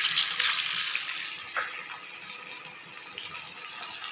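Cornflour-coated prawns deep-frying in hot oil in a kadai: a loud sizzle with many small crackles, strongest at first and easing a little over the next few seconds.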